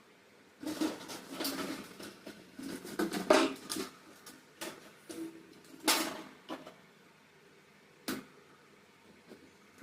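Handling noise: irregular rustling and clattering of objects being moved by hand, then a couple of single sharp knocks about six and eight seconds in.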